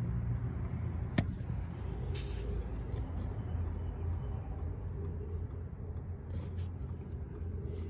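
Steady low hum of a running engine, with a single sharp click about a second in.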